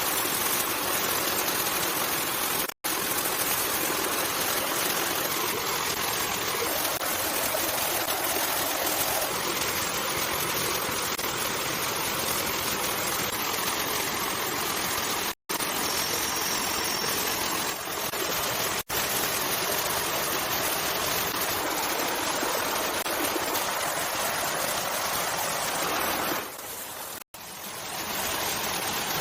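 Steady rushing of running water, like a stream or small waterfall, cut off for a split second four times by edits.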